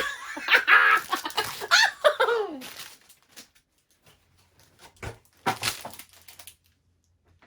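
A person's wordless, high cackling vocal sounds, falling in pitch, then a few short clicks and a brief rustle.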